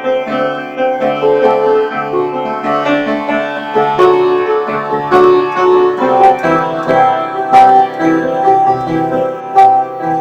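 Instrumental music with keyboard notes and plucked strings over a steady low drone, with a few sharp percussion hits.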